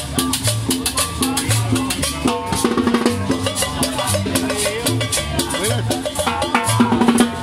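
Latin tropical dance music from a live band: a steady bass line repeating about twice a second under busy drums and hand percussion.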